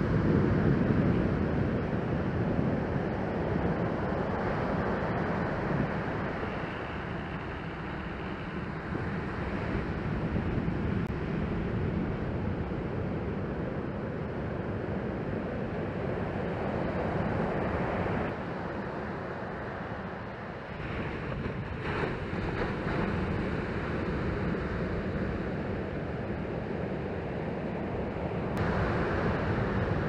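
Ocean surf breaking and washing up the beach, a continuous rushing wash that is loudest in the first second or so, with wind buffeting the microphone.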